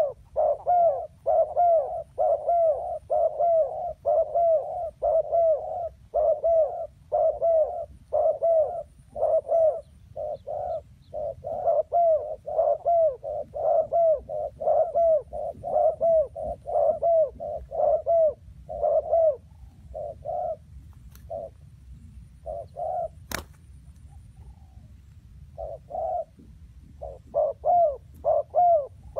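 Spotted doves cooing: short, repeated coos in quick succession. They thin out into a few scattered coos with gaps about two-thirds through, then pick up again near the end. A single sharp click sounds partway through the gap.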